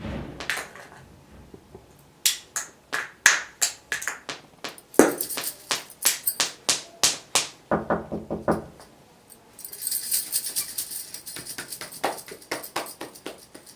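A string of sharp taps, two or three a second, then about three and a half seconds of high jingling rattle near the end.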